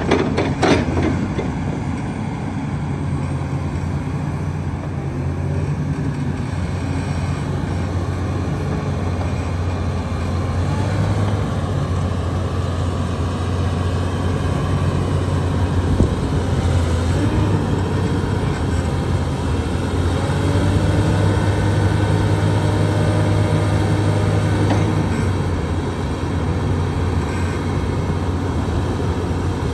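Komatsu PC360-10 excavator's six-cylinder diesel engine running steadily as the upper structure swings round, with thin hydraulic whines rising and falling over it, most noticeably in the second half.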